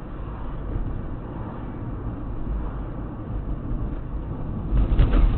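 Steady low rumble of a moving car, engine and road noise together, with a louder rough burst of noise near the end.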